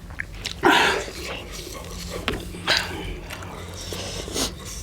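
Eating sounds of someone chewing spicy chicken momos, with three short noisy bursts of breath, about a second in, near the middle and near the end.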